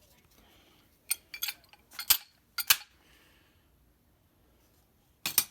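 Sharp metallic clicks and clinks from handling a Model T Ford's steel transmission band and its small clips. There are about four quick pairs in the first three seconds and one more near the end.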